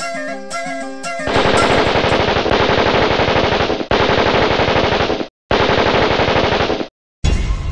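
Long bursts of full-auto fire from an AK-style assault rifle, rapid shots starting about a second in, broken twice by abrupt cuts to silence. Before the firing a flute melody with a repeating figure plays.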